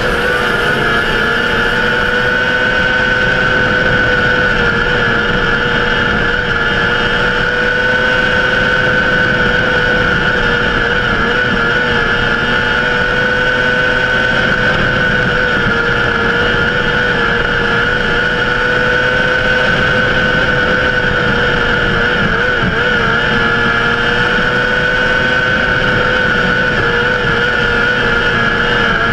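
Micro sprint car's motorcycle engine running hard at high revs, heard from the cockpit, its pitch held nearly steady with small rises and dips through the turns.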